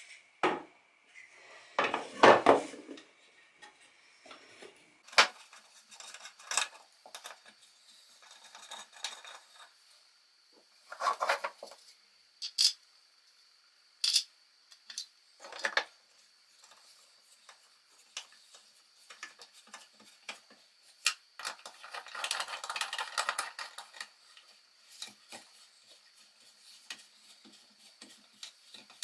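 Hard plastic support pieces and a hex key handled against a mitre saw's metal base: scattered clicks, knocks and clatter, with a longer stretch of rattling and scraping about three-quarters of the way through.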